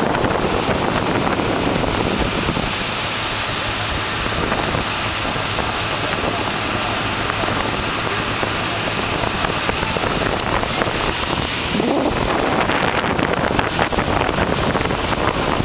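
Steady noise of a small boat under way: its engine, water rushing past the hull, and wind buffeting the microphone.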